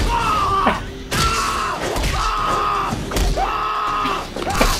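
Anime soundtrack: music with a character's long, drawn-out yells, several held cries of about a second each, some falling off at the end.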